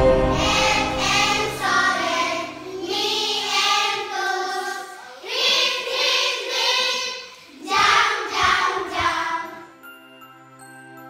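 Children's voices singing in phrases with short pauses. About ten seconds in the singing fades out, leaving soft background music with light tinkling notes.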